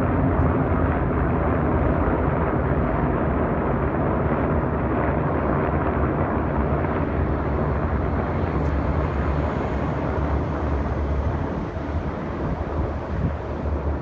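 A group of military helicopters flying overhead: a loud, steady drone of rotors and turbine engines, with a low hum underneath, easing off slightly near the end as they pass.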